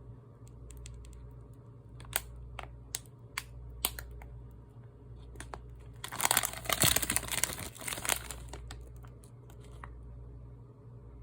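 Squid cooking on a press grill: scattered sharp clicks and taps, then a loud crackling sizzle for about two seconds starting six seconds in, over a steady low machine hum.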